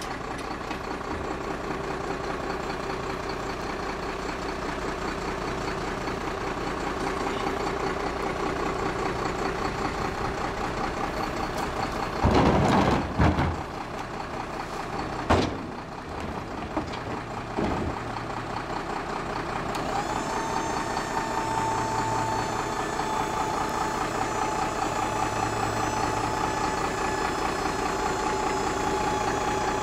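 Freightliner FL70 container truck's diesel engine idling steadily. A few loud bangs come near the middle as a wheeled trash cart is handled at the tailgate lift, and about two-thirds of the way through a steady high whine starts and holds as the hydraulic lift is run.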